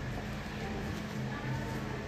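Steady room noise with a low hum and faint background music.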